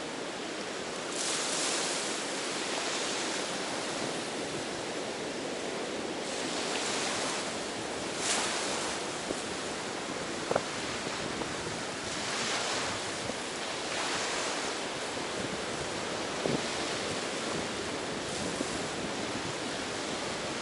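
Ocean surf on a beach: waves wash in and break in swells every few seconds, with wind on the microphone. Two brief faint ticks come about ten and sixteen seconds in.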